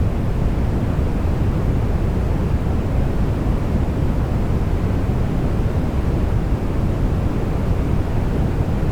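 Steady synthetic noise played as a blue noise sample: an even, unbroken rushing sound with most of its weight in the low end, which the listener likens to crowd noise or a train.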